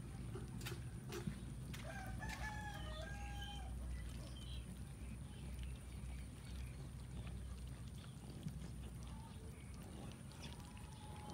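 A rooster crowing, one broken call about two seconds in and a shorter one near the end, over a steady low background rumble.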